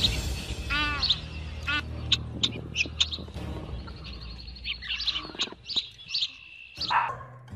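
Small birds chirping: many short, high chirps scattered through, over a low steady hum.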